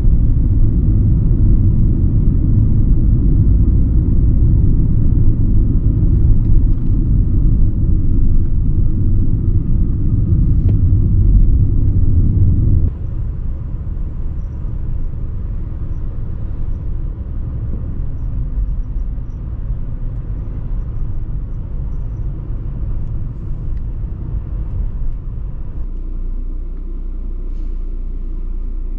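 Mercedes-Benz W124 E320 driving along: a loud low road-and-engine rumble that drops sharply about halfway through to a quieter, steady car-cabin drone. It settles a little lower again near the end.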